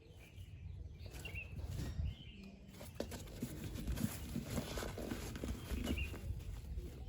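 Handling of hiking shoes and their packaging: irregular knocks, rubbing and clicks. A few short bird chirps sound in the background.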